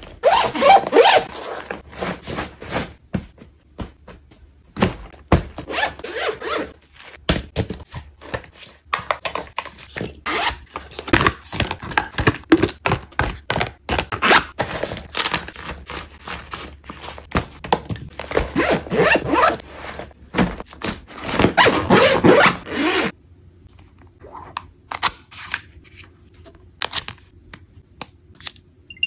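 Close-up packing sounds: zipping, the rustle of a clear plastic toiletry pouch, and clicks and knocks of small bottles and cases being handled and packed into a backpack. For the last several seconds the handling grows sparser and quieter, with occasional clicks and taps.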